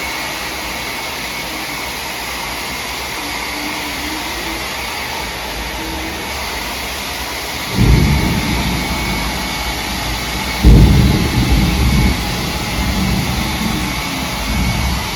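Thunder rumbling twice, once about eight seconds in and again, louder, near eleven seconds, each roll dying away over a few seconds, over a steady rush of heavy rain.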